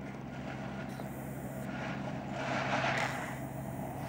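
A Kubota RTV 900 utility vehicle towing a metal-hoop chicken tractor: its diesel engine hums steadily under a harsh, god-awful noise from the rig, and the sound grows louder as it draws nearer.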